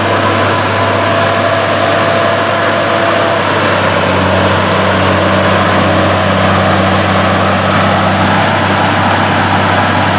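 A forestry machine's diesel engine running, with the rush of air from its Cleanfix reversing cooling fan; the engine's hum changes about four seconds in, a new steady tone joining it.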